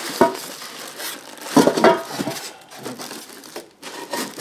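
Plastic wrapping crinkling and rustling against a foam packing insert as the wrapped pieces of a cast iron Dutch oven are worked loose, in irregular bursts that are loudest about halfway through.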